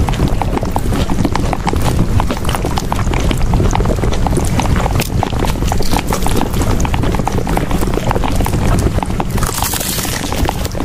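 Hooves clip-clopping in a quick, dense, unbroken run of knocks over a low rumble, as of ponies trotting.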